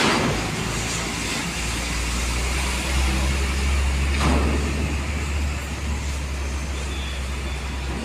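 Heavy Hino truck's diesel engine running as the truck drives slowly off a ferry down the ramp: a deep low rumble that swells about a second and a half in and eases after about six seconds, with a short knock about four seconds in.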